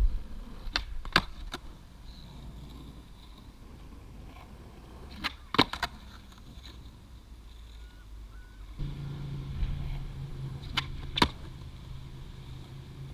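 A new Plan B Black Ice skateboard deck being skated for flip tricks. Its wheels roll with a low rumble, broken by sharp cracks of the tail popping and the board landing: a quick cluster near the start, then pairs about 5 and 11 seconds in. A steady low hum joins about nine seconds in.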